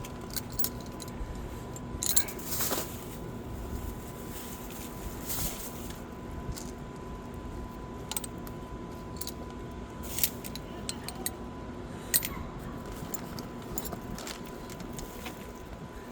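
Scattered metallic clinks and clatters of tools and car parts being handled during suspension work, over a faint steady hum.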